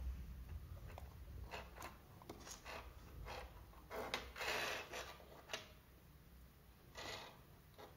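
Faint handling noise: short clicks and rubbing scrapes as female jumper-wire connectors are pushed onto the pin header of a Segger J-Link programmer. The longest, loudest scrape comes about four seconds in.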